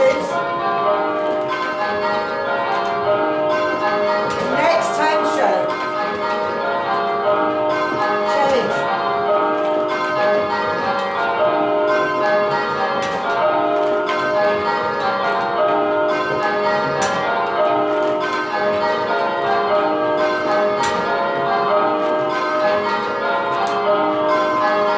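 Tower bells rung full-circle in changes: a continuous, even round of bells striking one after another, with pairs of bells swapping places and holding them for several blows (long places, kaleidoscope ringing). A short call of "change" comes from the instructor over the bells.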